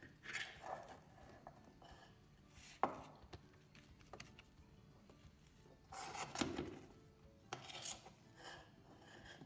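A kitchen utensil scraping and pushing thick almond burfi mixture across a greased steel dish in several short, faint scrapes, with one sharp knock of the utensil against the metal about three seconds in.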